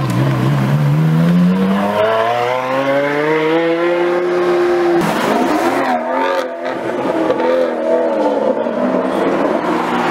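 Sports car engine accelerating hard, its pitch rising steadily for about five seconds, then a gear change, after which the engine note wavers up and down as it pulls on.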